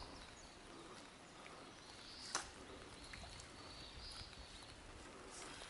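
Quiet open-air background with a faint high-pitched hum that swells and fades, and one sharp click about two and a half seconds in.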